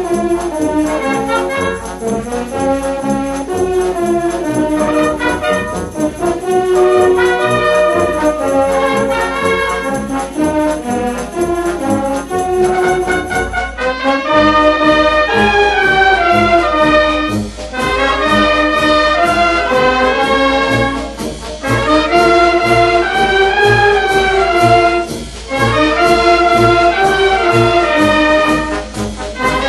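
A wind band with brass to the fore, trumpets and trombones, plays a piece over a steady bass beat. About halfway through the band comes in louder and fuller, with brief breaks between phrases.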